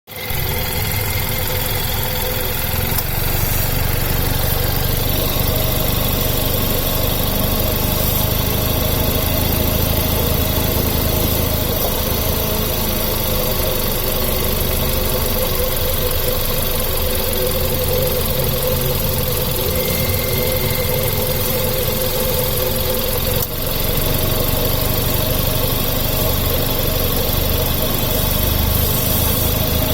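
Engine idling steadily while its drive belt squeaks with a thin, steady, high tone over the running engine. The squeak remains even with a new belt and tensioner fitted.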